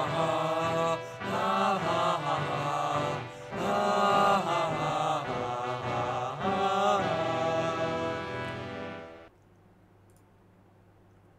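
Several men singing a 'ha ha hà ha' refrain together over a backing track, the end of a Vietnamese pop-ballad parody song. The music fades and then cuts off about nine seconds in, leaving near silence.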